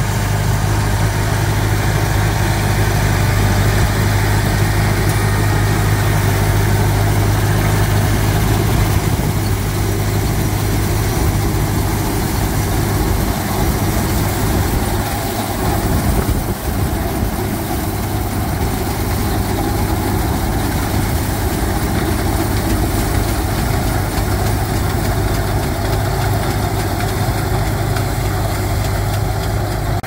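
Case 300 tractor engine running steadily while pulling a Case 75 pull-type combine, with the combine's harvesting machinery running as it takes in buckwheat. A strong, even low engine note sits under a dense mechanical rush.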